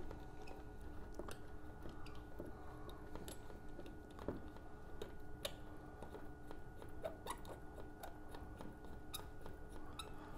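Faint scattered clicks and small scrapes of metal RF coaxial connectors being handled and threaded together as an automatic calibration module is attached, over a steady faint hum.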